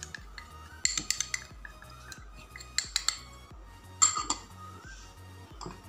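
A metal spoon clinking and scraping against a small glass bowl and a ceramic plate in three short clusters of clicks, as cornflour is knocked out of the bowl.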